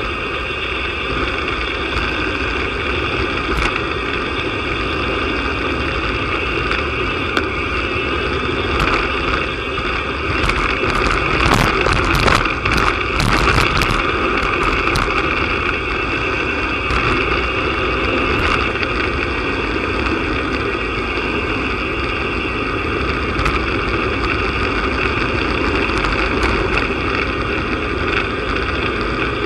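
Wind rushing over a bike-mounted camera's microphone, with road-bike tyres running on tarmac, while riding at speed; the buffeting gets rougher and louder for a few seconds around the middle.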